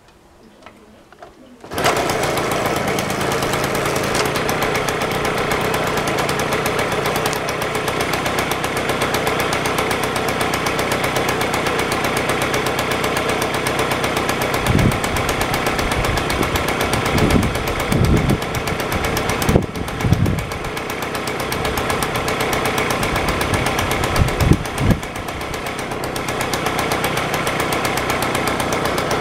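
Babetta Stella moped's 50 cc two-stroke single-cylinder engine, pedal-started, catching about two seconds in and then idling steadily with a fast even beat. It swells briefly louder a few times in the middle.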